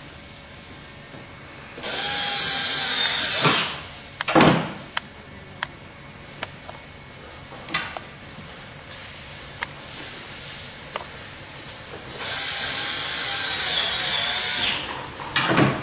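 A screw gun driving self-tapping stainless steel screws into the railing bracket, with no pre-drilling. There are two runs, one just under two seconds long about two seconds in and one of about two and a half seconds near the end, with scattered clicks and knocks of handling between them.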